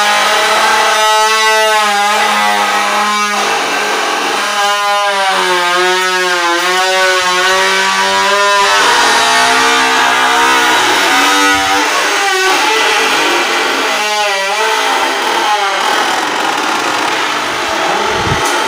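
Background song: a voice singing long, wavering notes in phrases a few seconds apart over a steady instrumental backing.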